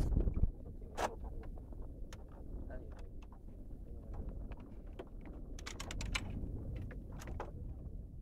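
Low rumble of wind and a boat on the sea, louder for the first half second, with irregular small clicks and taps and a quick cluster of them about six seconds in.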